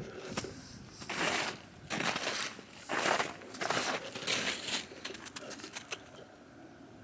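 Footsteps crunching through snow: a run of uneven crunches, about one every half second to second, that die away about six seconds in.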